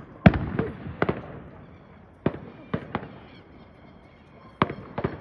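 Fireworks going off: a series of sharp, echoing bangs, about nine in all, bunched in the first second and a half, again around two and a half to three seconds in, and twice near the end. The first is the loudest.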